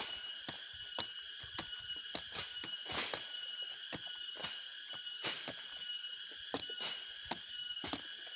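Knife cutting into the stalk of a sugar palm's (aren) male flower cluster: short, sharp strokes at an irregular pace of two or three a second, over a steady high-pitched hum.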